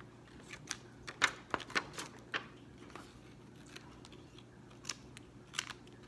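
Scissors snipping through a sheet of blank paper: a series of short, crisp cuts, bunched in the first couple of seconds with a few more near the end.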